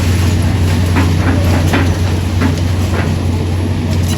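A heavy engine running steadily with a deep, even hum, with a few short faint knocks or calls in the middle of it.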